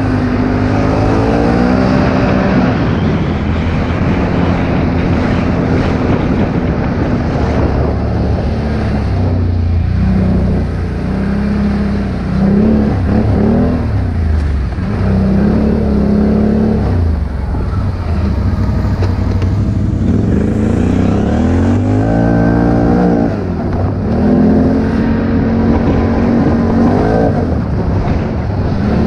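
ATV engine running under way, its pitch rising and falling again and again as the throttle opens and closes, with a long rev up and back down about three quarters of the way through, over a steady rush of wind noise.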